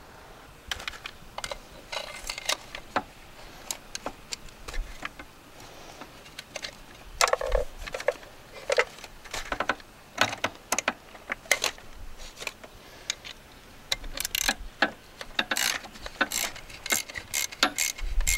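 Socket ratchet clicking in short, irregular bursts, turning a spark plug socket on an extension and universal joint to back out a spark plug.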